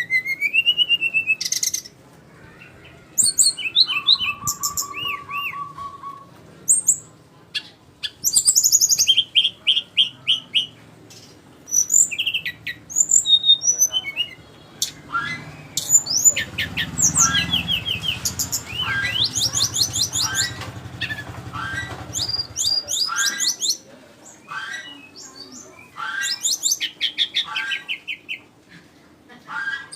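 Sikatan rimba, a jungle flycatcher, singing a varied run of quick chirps, rapid trills and short whistled notes in phrases separated by brief pauses.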